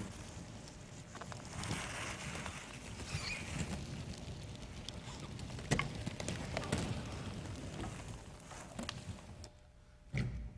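Stage noise of dancers moving without music: rustling and shuffling with scattered taps and knocks, a brief lull, then a sharp thump near the end.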